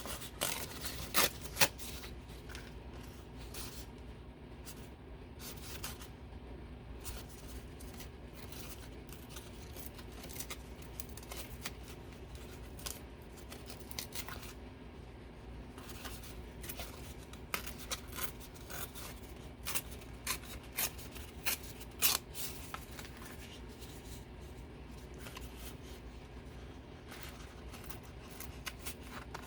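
Scissors snipping paper, with paper being handled between cuts: irregular sharp clicks, the loudest about a second and a half in and again near 22 seconds, over a faint steady low hum.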